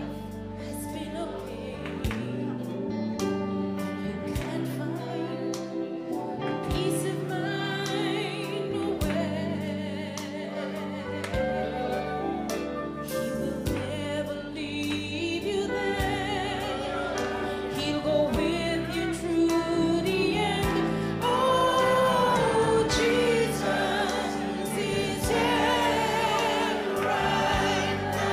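Gospel worship song: a woman sings into a microphone over a steady instrumental backing, getting louder in the second half.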